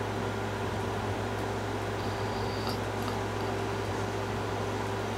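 Steady low electrical hum with a faint constant tone and hiss, unchanging throughout.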